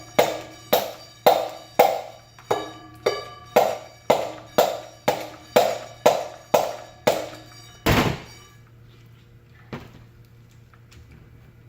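Hammer blows on metal, about two a second, each ringing briefly, about fifteen in a row, ending with one heavier, longer blow about eight seconds in and a single light tap later. The blows are pounding a seized part loose from a ring fan motor's shaft.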